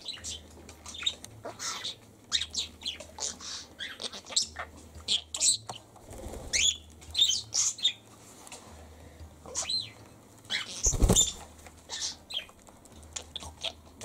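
Pet budgerigar and cockatiel chirping in many short, high calls, with one louder thump a little past the middle.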